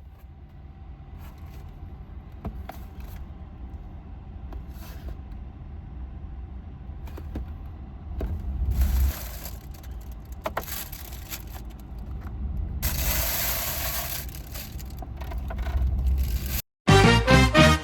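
Scraping and rustling sounds with a few sharp clicks over a low rumble, two longer scrapes in the middle. Piano music starts near the end.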